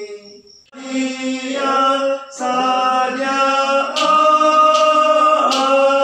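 A small men's choir singing a hymn in parts, holding long notes. The singing drops almost to silence for a breath in the first second, then comes back in full.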